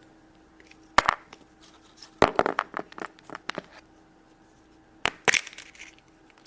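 Hollow chocolate egg being broken open by hand, with its plastic toy capsule clicking: sharp cracks and clicks about a second in, a cluster a little after two seconds, and another group near the end.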